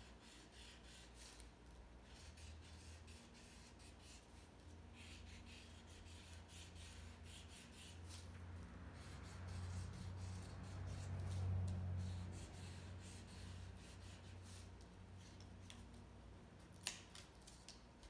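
Faint scratching of a felt-tip marker dragged across cardboard in short strokes as a spiral is coloured in. A low hum swells and fades about halfway through, and a single sharp tap comes near the end.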